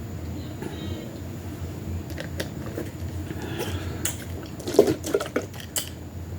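A person drinking juice, with a few quick sips and swallows bunched together about three-quarters of the way through, over a low steady hum.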